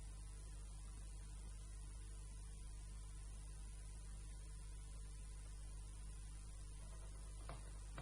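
Low steady electrical mains hum with faint hiss, and a faint click near the end.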